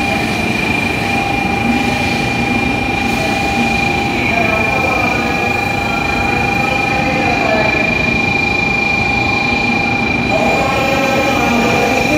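N700A Shinkansen train arriving and gliding slowly along the platform as it brakes to a stop. Steady running noise with a high whine held on one pitch, and lower tones that dip in pitch now and then.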